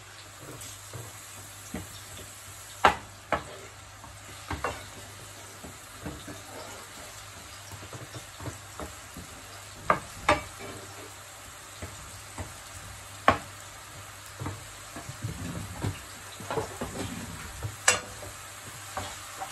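Chopped onion sizzling in oil in a non-stick frying pan while it is stirred with a wooden spoon. Now and then there is a sharp knock of the spoon against the pan.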